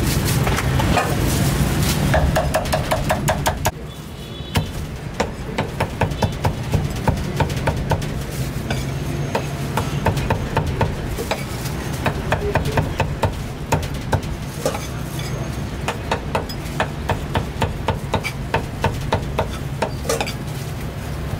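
Cooking utensils knocking and clinking at a street food stall over a steady low hum. A quick, even run of knocks comes about two seconds in, then the level drops and the knocks go on irregularly.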